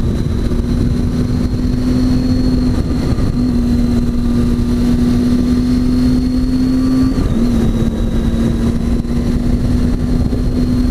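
Triumph Tiger 800 XC's three-cylinder engine running at a steady cruising pitch while riding, briefly dipping twice, about three and seven seconds in, over heavy low wind rush.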